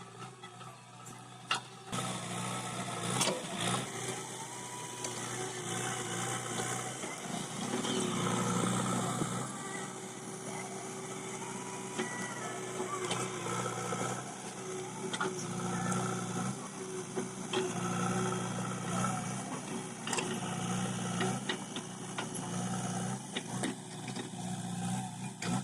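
JCB backhoe loader's diesel engine running, its level rising and easing as it works. It starts up loudly about two seconds in, with a few sharp clanks over it.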